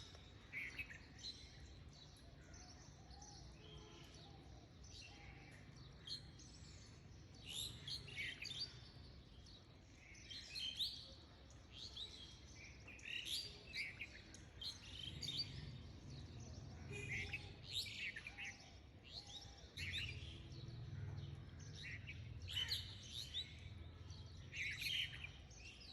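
Faint birds chirping over and over in short, scattered calls. A low rumble comes and goes underneath.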